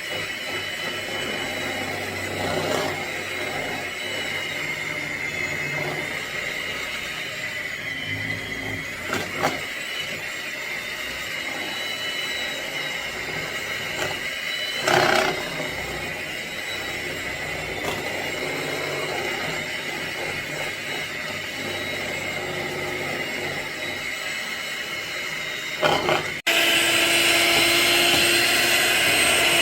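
Electric kitchen mixer motor running steadily while blending wet banana bread batter, with a few short knocks. Near the end the whir jumps abruptly louder.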